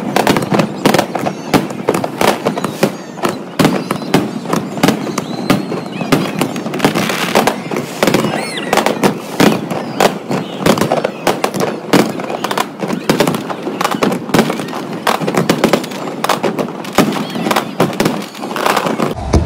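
Aerial fireworks display: a dense, unbroken stream of bangs and crackles from shells bursting overhead, several a second.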